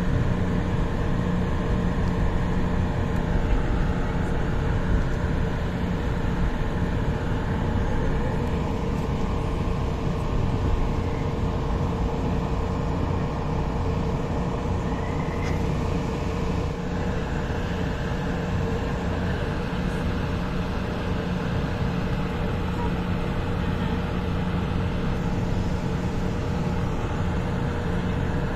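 Light rail train running: a steady rumble under a constant electric motor hum.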